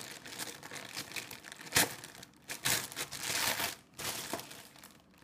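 Package wrapping being opened by hand: irregular crinkling and tearing, with a sharp crack nearly two seconds in.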